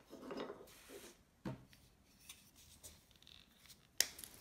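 Soft rubbing and rustling of neoprene knife sheaths being worked off wood-handled carving knives, with a light knock about a second and a half in and a sharper click near the end.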